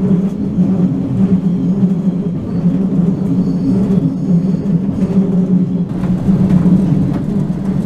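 Interior noise of a moving diesel passenger train: a steady low engine drone over the rumble of the running gear, heard from inside the carriage.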